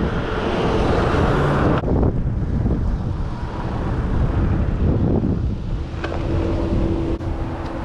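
Wind rushing over the microphone of a riding e-bike, loud at first and dropping off sharply about two seconds in as the bike slows. A steady low hum comes in near the end.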